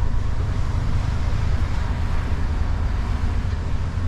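Simulated truck engine in a driving video game running steadily, a constant low rumble with faint road and wind noise over it.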